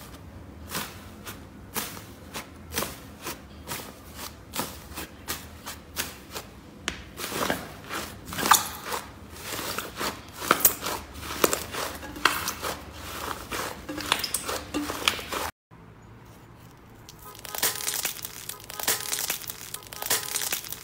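Slime being worked by hand, making quick sticky pops and crackles, a few a second at first and then denser. It breaks off sharply about three-quarters through, and the crackling starts again on a new clip.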